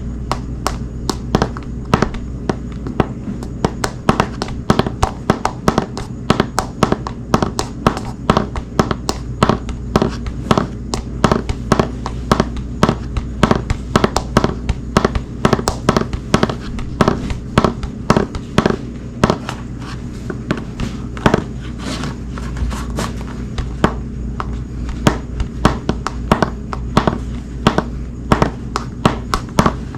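Hard-soled shoes walking on a hardwood floor: sharp heel and sole clicks, about two to three a second in an uneven rhythm, over a steady low hum.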